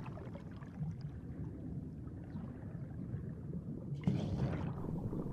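Underwater ambience: a low, steady rumble of water, with a brief rush of bubbles about four seconds in.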